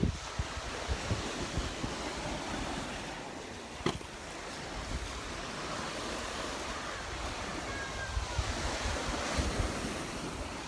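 Gulf of Mexico surf washing onto the beach, with wind buffeting the microphone in low gusts. A single sharp click about four seconds in.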